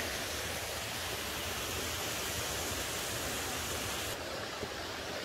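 Steady rush of flowing water, a mountain stream or cascade, an even hiss with no pitch. About four seconds in, its higher part suddenly thins out.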